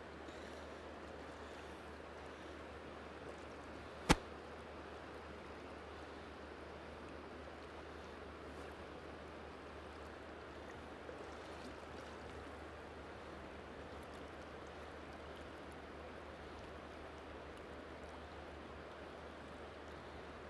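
River current flowing steadily, an even rush of water, with one sharp click about four seconds in.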